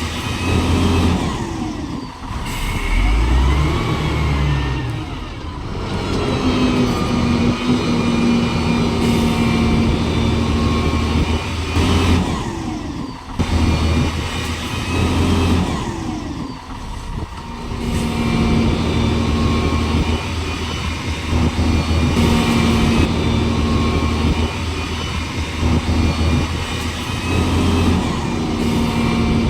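A motor vehicle engine running loudly, its pitch rising and falling again and again.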